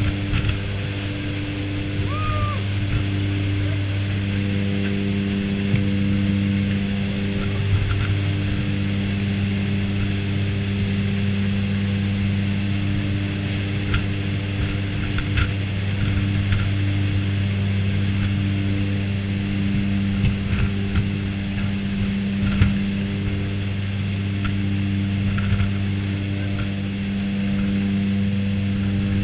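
Jump plane's propeller engines droning steadily inside the cabin, with wind noise coming through the open door and a few small knocks.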